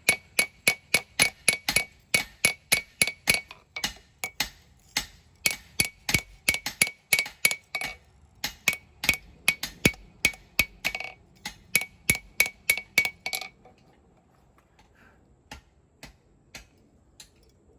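Hand hammer striking hot steel on an anvil, forging a knife blade: a fast, even run of ringing blows, about four a second, that stops about 13 seconds in, leaving only a few faint taps.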